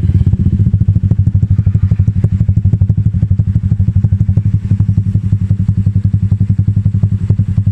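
Honda Supra X125's single-cylinder four-stroke engine idling through a Lonerider CMMS 30 cm aftermarket racing exhaust, a loud, steady, even putter of exhaust pulses.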